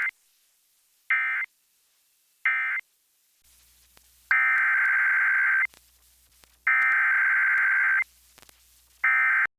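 Emergency Alert System SAME data tones. Three short end-of-message bursts about 1.4 s apart close the previous warning. About a second and a half later come the longer header bursts of the next warning, two complete and a third starting near the end.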